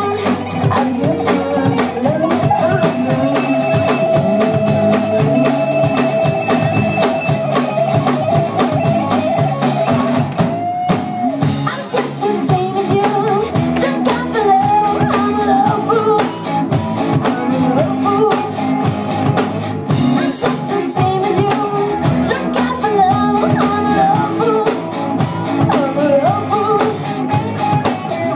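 Rock band playing live: a singer over guitar and drum kit, with a long held vocal note early on. The drums and cymbals drop out briefly about ten seconds in, then come back.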